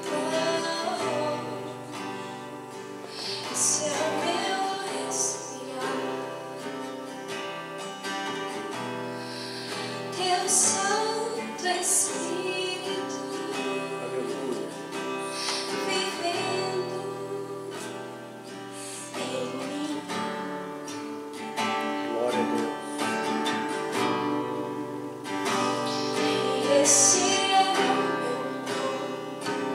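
A woman singing a Christian worship song while strumming an acoustic guitar.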